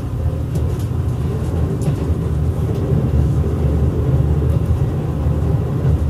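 Steady low rumble of a JR Kyushu 787 series electric train running, heard from inside the passenger car, with a few faint clicks and rattles.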